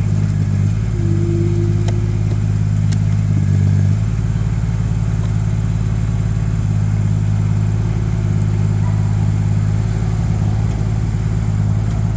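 Mini excavator's diesel engine running steadily, its note shifting about a second in and briefly louder and higher between about three and four seconds in, with a couple of light knocks.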